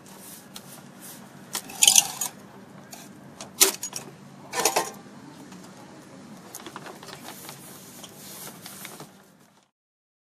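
A plastic billboard poster sheet being handled and pressed into its frame rail, rustling and crackling, with three loud crinkling bursts in the first five seconds, over a steady low hum. The sound cuts off near the end.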